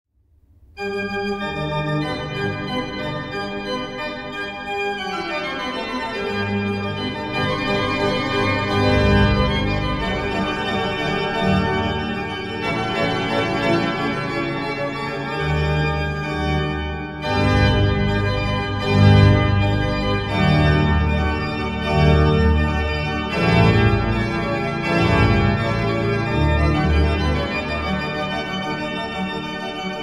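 Pipe organ playing sustained full chords over deep pedal bass notes, starting just under a second in, with a falling run of notes a few seconds later.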